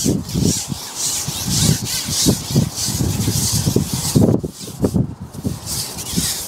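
Wind buffeting the microphone: irregular low gusts of noise with a hissing rustle above them.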